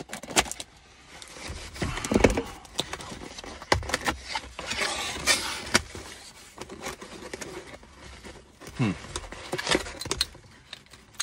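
A cardboard shipping box being slit open with a knife and unpacked: scraping and tearing of cardboard, rustling of packing, and scattered sharp knocks as the contents are handled.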